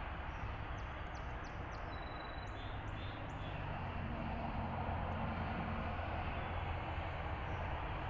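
Steady outdoor rush of background noise with a low hum beneath it, and a quick run of faint, high bird chirps about one to three and a half seconds in.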